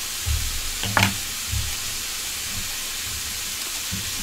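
Chicken frying in a skillet, a steady sizzling hiss. Over it come a few dull knocks and one sharp clack about a second in, from bowls and a knife handled on the counter.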